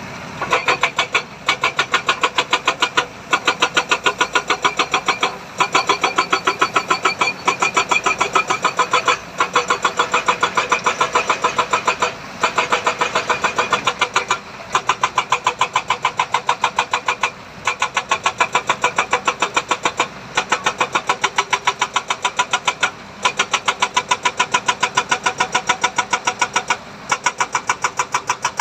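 Engine-driven machinery running with a fast, even clatter, about ten beats a second, broken by short pauses every two to three seconds.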